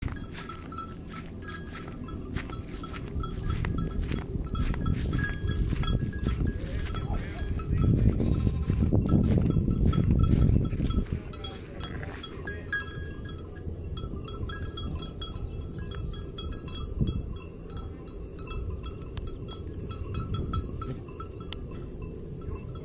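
Sheep on an alpine pasture bleating, with repeated bell-like clinks. A low rumble underneath is loudest from about eight to eleven seconds in.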